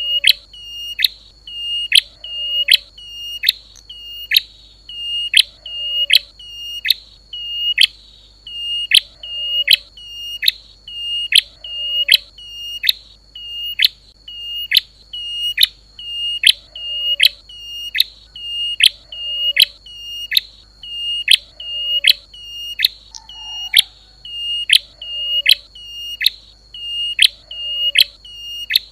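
Lure recording of a prenjak lumut (klawu) call: sharp, high chip notes repeated evenly about twice a second, each sweeping down in pitch, over a steady thin high tone.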